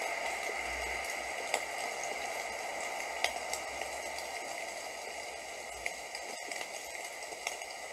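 Steady rain: an even hiss with scattered sharp ticks of drops.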